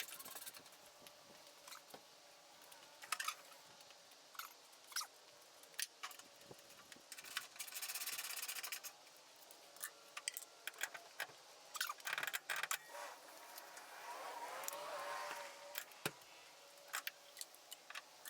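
Hands and tools working on car body parts: repeated sharp metal clicks and knocks, with a few stretches of rapid clicking or scraping, the kind of sound of parts and fasteners being fitted.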